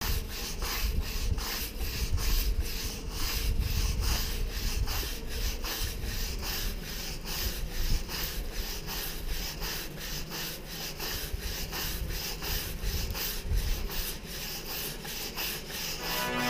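Paint roller on a long pole rolled back and forth over a rough wall, a steady scraping rub at about three strokes a second.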